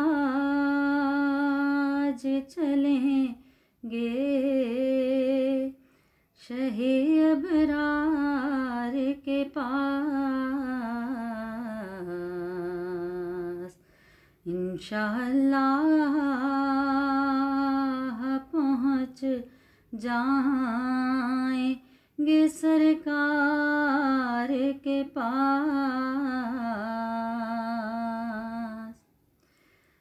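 Unaccompanied solo voice carrying a naat melody in long, wavering held notes. It comes in phrases of a few seconds each, with short breaks between them.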